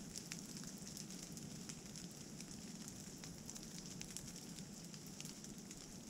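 Steady light rain falling in woodland: a soft hiss of rainfall with many scattered single drops ticking close by.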